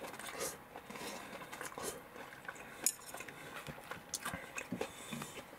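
Close-up eating noises: chewing of fried chicken and rice, with chopsticks clicking and knocking against the bowl in small irregular ticks. One sharp click just under three seconds in is the loudest.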